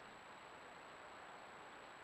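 Near silence: the trail camera's steady faint hiss, with a thin high steady whine above it.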